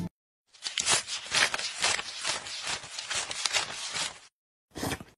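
Paper banknotes being counted by hand: a quick, irregular run of papery flicks and rustles that stops about four seconds in, then one more brief rustle near the end.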